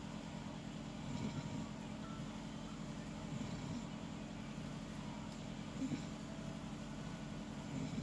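A sleeping person snoring, the snores swelling about every two seconds over a steady low hum.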